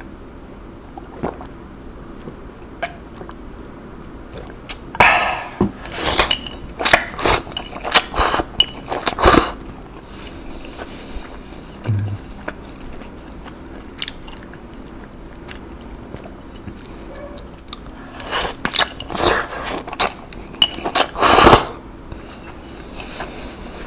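Close-miked mouth sounds of a person eating: chewing and biting, in two loud spells of sharp clicks and smacks, one about five seconds in and another near the end.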